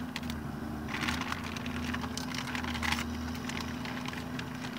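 Engine idling with a steady low hum, heard from inside a vehicle cab. About a second in, a spell of sharp crackling clicks runs for about two seconds.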